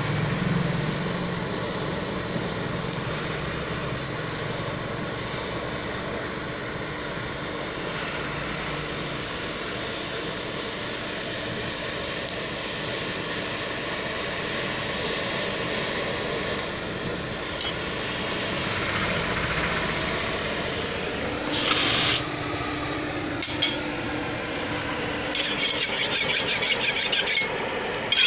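A charcoal forge fire, fanned by a blower, makes a steady rushing noise with a low hum while a machete blade heats in it for tempering. Near the end come a short loud scrape, two clicks, then a couple of seconds of fast rasping strokes as the blade is worked on the anvil.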